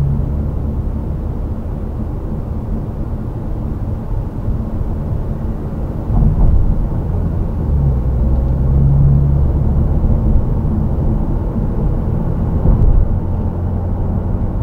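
Steady low road and tyre rumble with engine drone inside the cabin of a Mercedes-Benz W212 E-Class cruising at highway speed.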